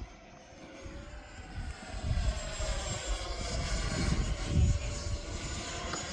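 A 3D-printed RC Fouga Magister model jet flying past, its whine growing louder over the first two seconds and sliding in pitch as it passes. Gusts of wind rumble on the microphone, the strongest about four and a half seconds in.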